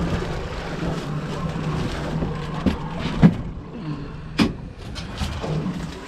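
Boat engine idling with a steady low hum and some wind noise. A few sharp knocks come in the middle, the loudest about three seconds in and another about four and a half seconds in.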